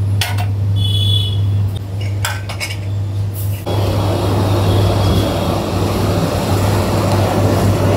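Clinks and taps of steel plates and utensils at an idli stall, over a steady low hum. About four seconds in, this gives way to a denser, even street noise.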